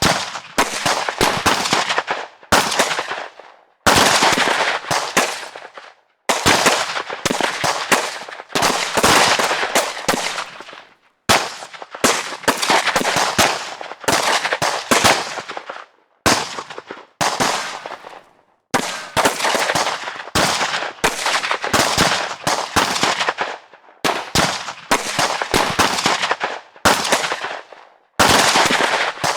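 Gunfire sound effects: repeated bursts of rapid shots, each string lasting one to a few seconds and ringing off before the next begins.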